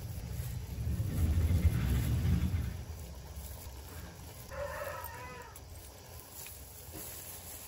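A low rumbling noise, loudest for a couple of seconds near the start. About halfway through comes a short pitched animal call lasting about a second.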